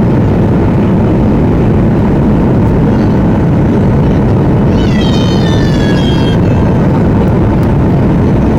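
Steady, loud rush of engine and airflow noise inside the cabin of a Boeing 737-800 in flight on approach. About five seconds in, a short high-pitched squeal, slightly falling in pitch, rises above it for a second and a half.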